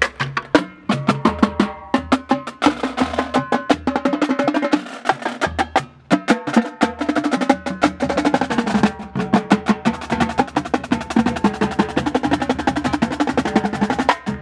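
Marching drumline playing a fast, dense passage on snare drums, tenor drums and tuned bass drums, the bass drum notes stepping between several pitches, with a brief lull a little before the middle.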